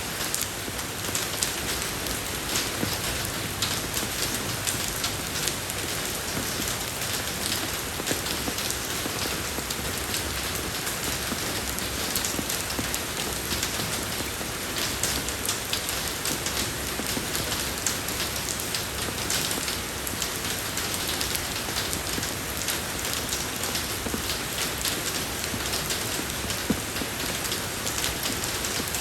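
Steady rain falling on a road surface, an even hiss dotted with the small ticks of individual drops.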